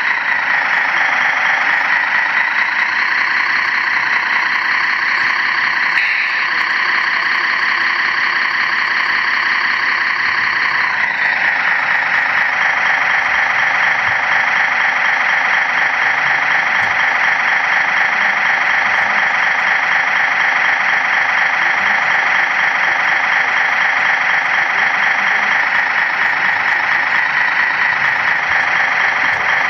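Engine sound from a radio-controlled model heavy-haulage truck, running steadily at idle. Its tone changes about eleven seconds in.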